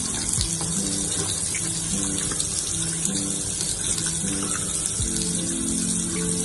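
Water running steadily from a tap into a sink as hands are washed, with background music of held melody notes playing over it.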